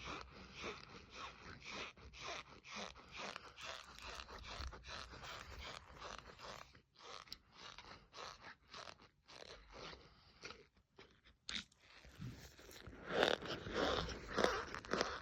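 Repeated short squeaky, crunchy strokes, about two or three a second, sparser and fainter in the middle and loudest near the end.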